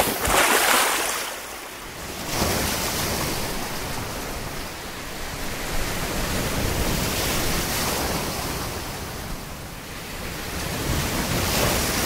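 Sea waves breaking and washing on a shore, the surf noise swelling and easing every few seconds, with some wind.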